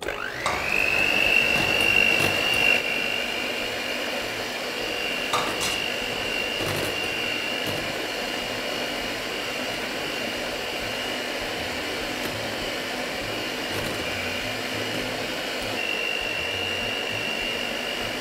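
Handheld electric mixer switched on, its whine rising as the motor spins up and then holding steady and high while the twin beaters churn a thick cake batter, with a few light taps along the way.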